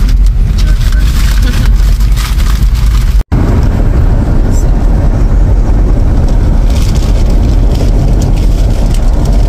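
Car driving along a road, heard from inside: a loud rush of road and wind noise, heavy in the lows, with wind buffeting the microphone through the partly open window. The sound cuts out for an instant about three seconds in.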